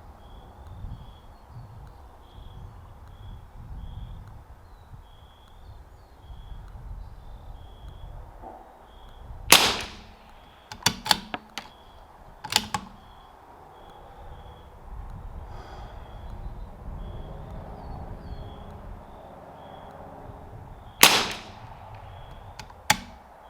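Two shots from a CZ 457 bolt-action .22 LR rifle, about eleven seconds apart. After each one comes a quick run of metallic clicks as the bolt is worked to eject the case and chamber the next round.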